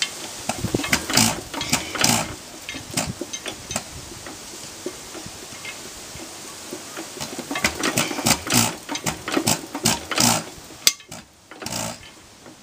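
Sundial 2 HP stationary engine being turned over by hand at its flywheel, firing irregularly in sharp pops and knocks as it tries to start, with a quieter gap near the end.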